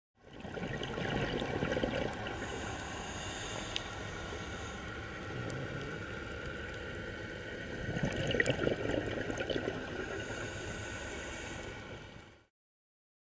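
Underwater sound through a dive camera's housing: a scuba diver's regulator, with exhaled bubbles gurgling up in two louder bouts, about a second in and again about eight seconds in, over a steady wash of water noise. It fades in and fades out near the end.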